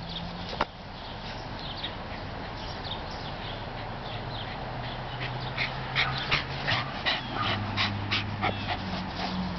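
A dog giving short, high yips and whines, several in quick succession in the second half, over a low steady hum.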